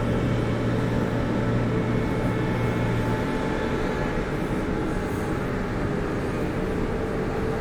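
A train running, a steady rumble with held humming tones; a low hum drops away about three seconds in, and a higher tone holds later on.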